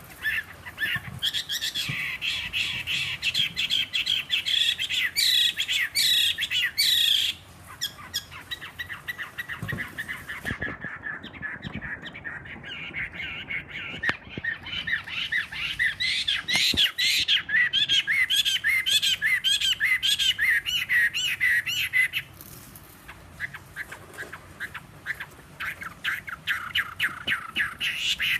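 Caged Chinese hwamei (fighting hwamei, three seasons old) singing long runs of rapid repeated notes, softening and breaking off briefly twice before starting again. The owner describes the bird's voice as slightly hoarse.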